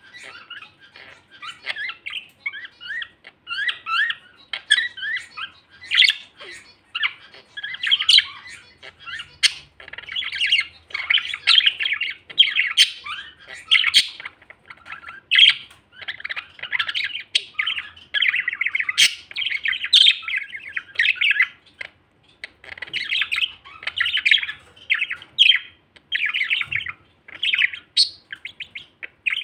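Male budgerigars warbling: a near-continuous chattering song of rapid chirps, clicks and squawks, broken by brief pauses.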